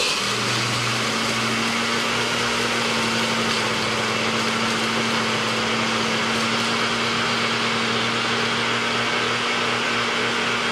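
NutriBullet personal blender running at full speed, grinding dried, baked eggshells into a fine powder. A steady motor hum with a dense rushing noise over it starts abruptly at the beginning.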